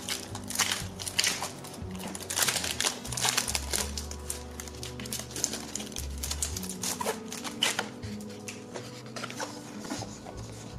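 Clear plastic packaging crinkling and paper rustling as a sticker sheet and toy horse are handled, in quick irregular crackles that thin out near the end, over background music.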